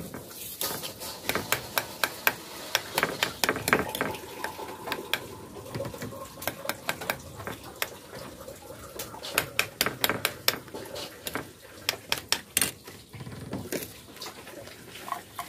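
Metal spoon stirring and pressing tamarind pulp soaking in hot water in a ceramic bowl, clinking against the bowl again and again at an uneven pace.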